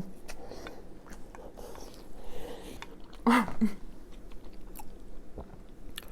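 Close-miked mouth sounds of a woman chewing a mouthful of hot potato casserole: soft, wet chewing with many small mouth clicks, and a brief louder burst a little over three seconds in.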